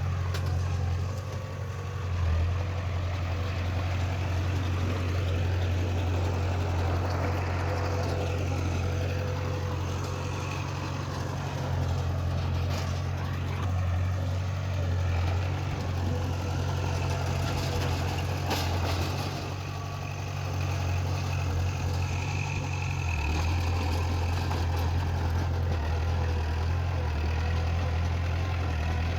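Heavy diesel engine of earthmoving machinery running steadily at low, even revs, with a couple of short clanks about halfway through.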